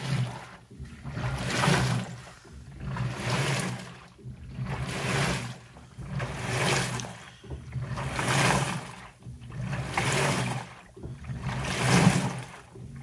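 LG Turbodrum direct-drive top-loading washer agitating its wash load: water and clothes swish back and forth in regular strokes about every 1.7 seconds, with a low hum under each stroke.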